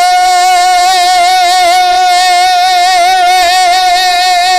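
A male naat reciter holds one long, high sung note through a microphone, with a slight vibrato.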